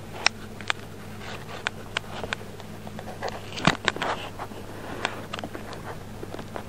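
A cat biting and licking a camera lens up close, drawn by catnip powder caught in the lens gap. Its teeth and tongue make irregular clicks and scrapes on the lens and camera body, the loudest about halfway through, over a steady low hum.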